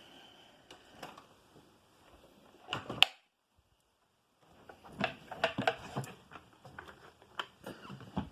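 Handling noises: scattered clicks, taps and rustling, with one sharp click about three seconds in, then a second of dead silence, then a busier run of clicks and rustles. No vacuum motor is running.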